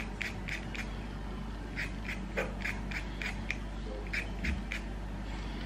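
Vegetable peeler scraping the skin off a raw potato in short quick strokes, in runs of several at about four strokes a second.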